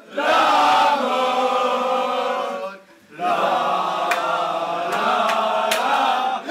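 A group of men chanting a song in unison, loud and sustained, breaking off briefly about halfway through before starting up again. A few sharp hits, such as claps or stomps, are heard in the second half.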